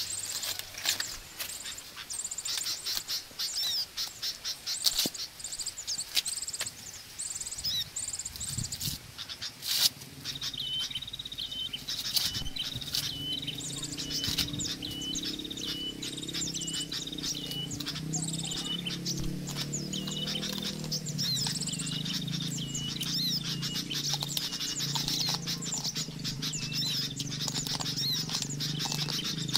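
Corn husk being torn and peeled off an ear of corn, quick crackling rustles, over birds chirping. About a third in the crackling eases and a low steady hum starts, while a bird repeats a short high call over and over.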